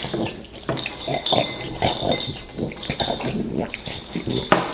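Sloppy, animal-like eating noises in quick, irregular bursts, with a spoon clinking against a cereal bowl.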